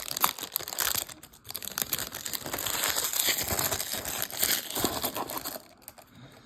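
Plastic wrapper of a 2021 baseball card fat pack being torn open and crinkled in the hands, a dense crackling that dies down near the end.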